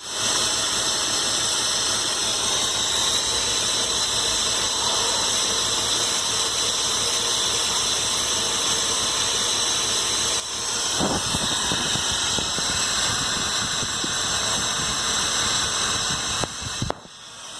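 Mercedes-Benz M104 24-valve straight-six idling roughly, with a steady loud hissing suction sound over the engine note. It is a poor idle after the idle air control valve was checked, and the owner cannot explain the suction noise.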